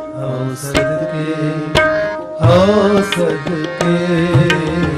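Instrumental passage of Sikh shabad kirtan: tabla strokes over the harmonium's sustained reed tones, with no sung line.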